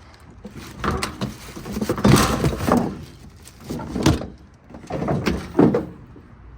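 Car door clunks and creaks: about five separate knocks, roughly a second apart.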